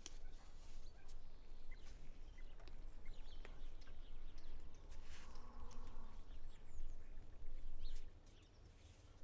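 Quiet room ambience: a steady low hum with small scattered ticks and a few faint, short high chirps.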